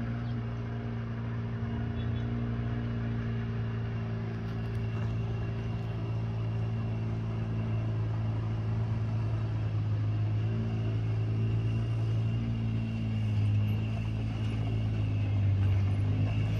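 A motor vehicle's engine running at a steady speed: an even, low hum that holds throughout.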